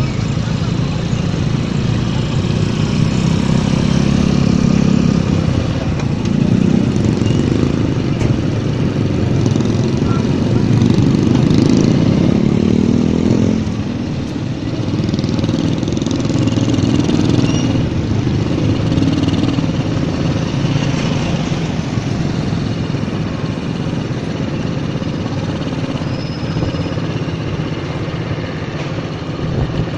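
Motorcycle engine running while riding slowly through street traffic. Its pitch rises steadily for several seconds as it accelerates, then drops off about halfway through.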